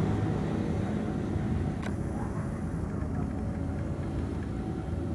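Two CC 201 diesel-electric locomotives working in tandem, their engines giving a steady low drone under load as they haul a passenger train away from a station. A single sharp click sounds about two seconds in.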